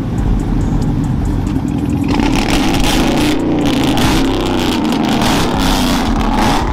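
Lifted GMC Sierra pickup's engine and exhaust running as the truck drives off, growing louder about two seconds in.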